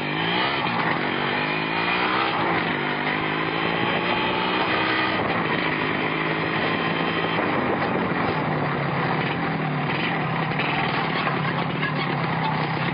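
Yamaha motorcycle engine being revved: its pitch rises and falls several times over the first few seconds, then settles into a steady run.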